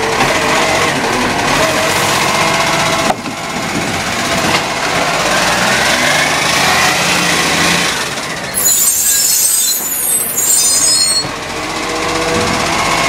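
Gen V side-loader garbage truck running while its hydraulic arm lifts and tips a green-waste bin: steady engine and hydraulic noise, a rising whine as the arm goes up, then about three seconds of high hissing about two-thirds of the way in.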